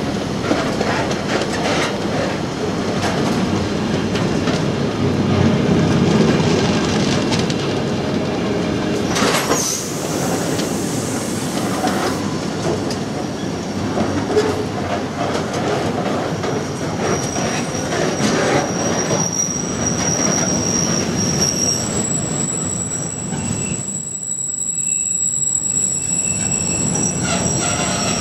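Container wagons of an intermodal freight train rolling past close by: a steady rumble and rattle of wheels on rail with occasional sharp knocks. From a little past halfway a thin, high, steady wheel squeal rides over it.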